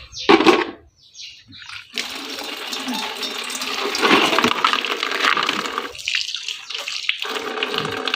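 Tap water running steadily, splashing into a sink while dishes are washed; it starts about two seconds in, stops briefly near the six-second mark, then runs again. A short sharp sound comes just at the start.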